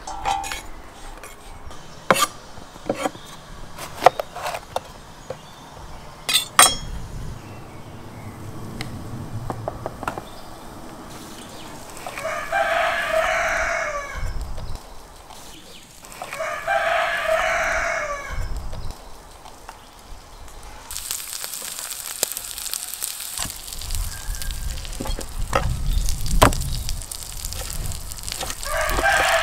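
A rooster crowing three times, each crow lasting about two seconds: twice in the middle and once more at the very end. Sharp knocks of a knife on a wooden cutting board come about two, four and six seconds in.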